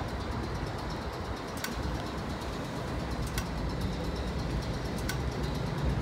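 Low, steady rumble of a W-class tram and city street, with a short sharp tick repeating about every 1.7 seconds.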